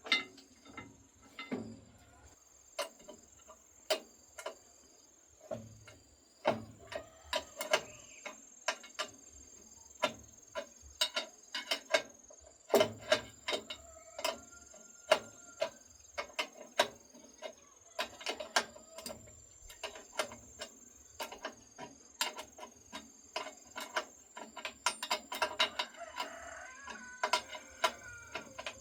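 Irregular sharp clicks, taps and knocks of hand work on machine parts, some ringing briefly like metal, at a few to several a second and busier in stretches, over a faint steady high tone.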